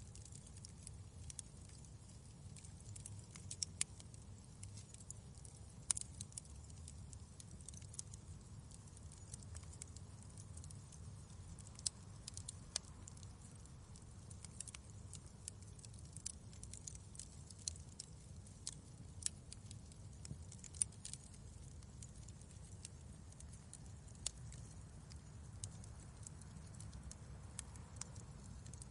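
Wood fire crackling in a fireplace: irregular small snaps and pops over a soft low rumble of the flames, with a few louder pops scattered through.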